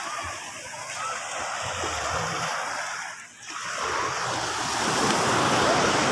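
Sea surf washing and breaking on a sandy beach, with wind rumbling on the microphone; the wash dips briefly about three seconds in and swells again.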